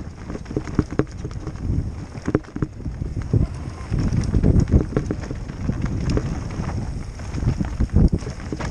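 Mountain bike ridden fast down a bumpy dirt singletrack: tyres rumbling and the bike rattling and knocking irregularly over bumps, with wind buffeting the helmet-mounted microphone.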